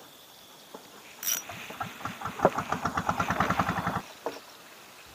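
Kyoto Wish 800 spinning reel being cranked: a short sharp snap about a second in, then a fast, even run of clicks for about two and a half seconds that stops suddenly.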